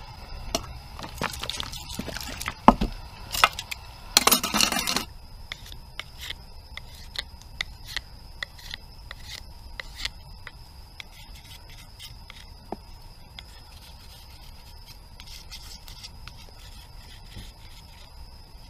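Folding knife whittling a wooden stick, shaving it in many short scraping strokes. The first few seconds are louder, with a dense scraping spell and a few sharp clinks.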